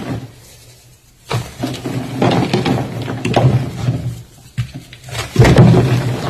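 Pink reformed gym chalk being crushed and crumbled, crunching in grainy, crackly stretches. The crunching is quiet for the first second, pauses again about four seconds in, then returns loudest about five and a half seconds in.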